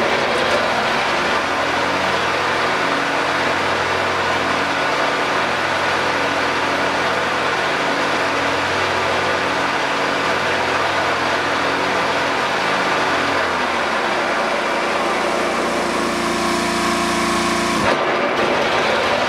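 John Deere 425 garden tractor's 20-horsepower Kawasaki engine running steadily. Its low note changes about two-thirds of the way in and shifts abruptly near the end.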